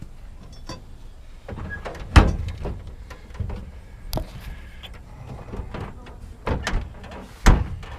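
Scattered knocks and bangs from scrap metal being handled and loaded, the loudest about two seconds in and again near the end.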